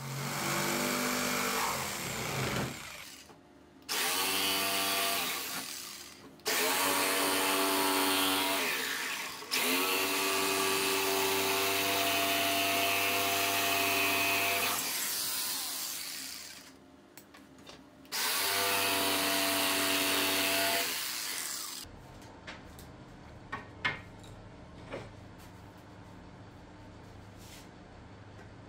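Jigsaw cutting wood in five runs of a few seconds each, its motor winding up at the start of each run and then running steady. The cutting stops about 22 seconds in, followed by a few light knocks.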